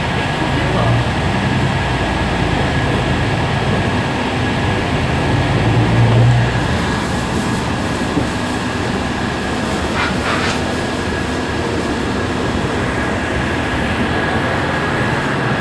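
Heuliez GX 137 city bus idling at a stop: a steady engine rumble with a thin steady high tone over it. The low engine note swells briefly about six seconds in.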